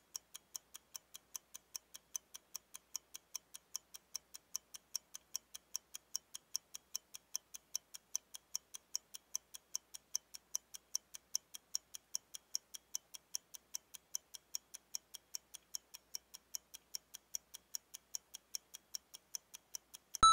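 Clock ticking steadily, about three ticks a second in an alternating tick-tock. Right at the end a short bright run of high chime-like notes comes in, louder than the ticking.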